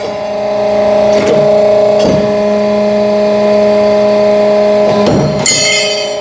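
63-ton hydraulic alligator shear running, its pump motor humming steadily, with a few short knocks as the jaw cycles. About five and a half seconds in comes a sharp clank with metallic ringing as the shear cuts through #5 (5/8 inch) rebar.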